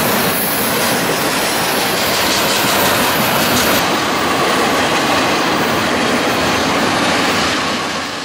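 Double-stack intermodal freight train's well cars rolling past close by: a loud, steady rolling noise of steel wheels on the rails, beginning to fade near the end.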